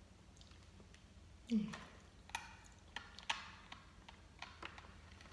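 Mouth sounds of chewing gummy candy: scattered soft clicks and smacks, with a short hummed 'mm' about a second and a half in.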